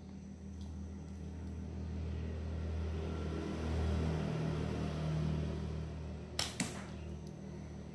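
Firestarter slingshot shot with a 1636 rubber-tube bandset: about six seconds in, two sharp cracks a fifth of a second apart as the tubes snap forward on release and the shot goes off, over a steady low hum.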